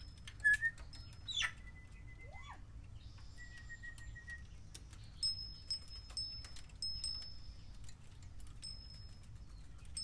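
Timneh African grey parrot giving a few short whistles: a brief chirp, then a falling whistle that levels into a steady whistle held about a second, a short rising whistle, and another wavering whistle near the middle.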